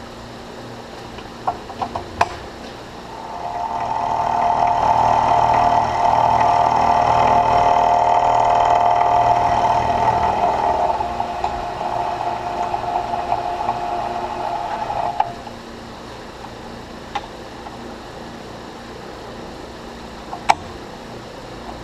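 Vertical milling machine's end mill cutting a flat on the head of a shoulder bolt held in a chuck on an indexing head: after a few sharp clicks, a loud, steady, high singing tone for about eight seconds, then a rougher, lighter cut that stops with a click. The mill then runs on with a low hum and a couple of clicks as the head is indexed.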